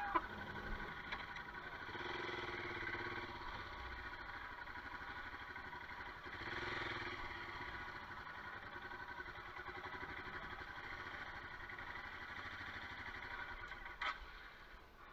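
Royal Enfield Himalayan's single-cylinder engine running steadily as the motorcycle is ridden along a muddy lane, its note rising and falling briefly about halfway through. A couple of sharp knocks near the end.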